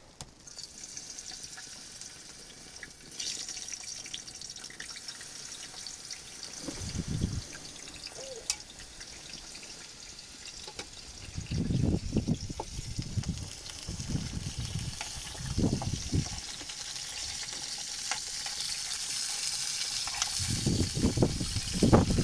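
Water trickling with a steady hiss, broken by dull low rumbles about seven seconds in, for a few seconds from about twelve seconds in, and again near the end.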